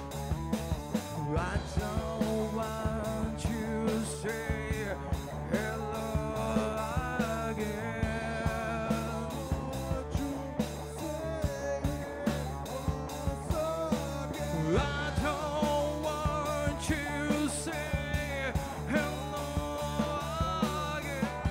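Live rock band playing: a male singer's voice over electric guitar, electric bass and a drum kit keeping a steady beat.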